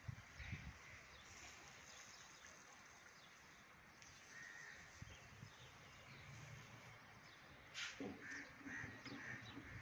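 Near silence: faint outdoor background, with a few faint short high chirps near the end.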